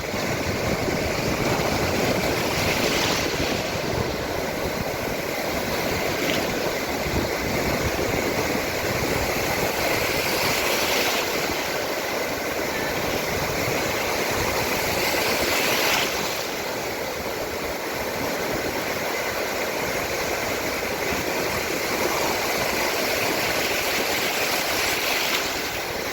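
Sea waves washing onto the shore: a continuous rushing surf that swells in louder surges every several seconds.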